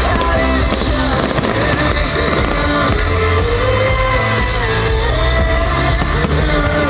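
Loud rock music with a singing voice and a steady bass line.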